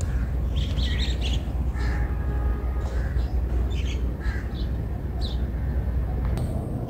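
Birds chirping and calling in short, scattered chirps, over a steady low rumble.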